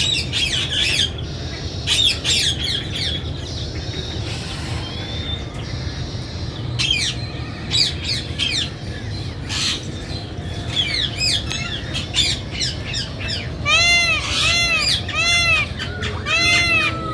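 Birds chirping and squawking with many short, high calls over a steady low background hum. Near the end, a peafowl gives a rapid run of repeated arched calls, about three a second.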